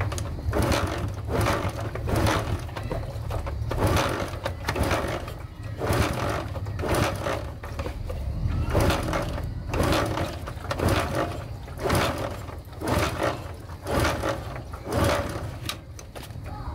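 Honda CD-70's four-stroke single-cylinder engine being kick-started over and over with the ignition off, about one kick a second, turning over without firing, over a steady low hum. The cranking pushes fresh oil up to the cylinder head after the clutch has been rebuilt.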